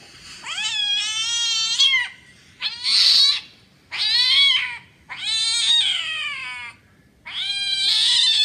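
A cat meowing repeatedly: five drawn-out, high meows in a row with short pauses between them, the last one still going at the end.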